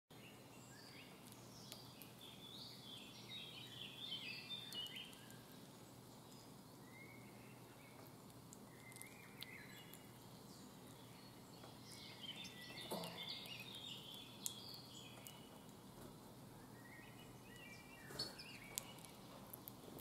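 Songbirds singing in short warbling phrases that come and go, over a faint steady outdoor background, with a few sharp clicks in the second half.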